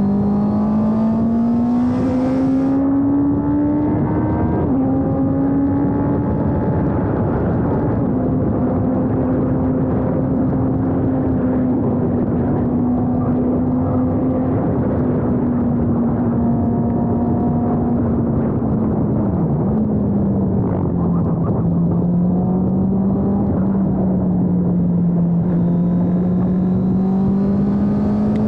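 Honda CB650R's 649 cc inline-four engine running under way at road speed, with wind rushing over the bike. The engine note climbs over the first few seconds, holds steady, then drops abruptly about two-thirds in and settles lower.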